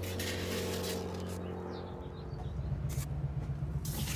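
A low, steady motor-like hum, which turns into a rougher, fluttering low rumble about halfway through.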